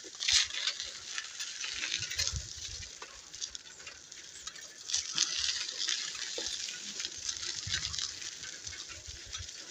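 Bicycle rolling along a dirt road: a steady crackling hiss of the tyres on grit, with scattered small clicks and rattles.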